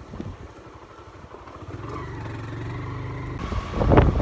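Motorcycle engine running at idle, with a steady low hum that grows louder about halfway through. A loud rush of noise follows near the end.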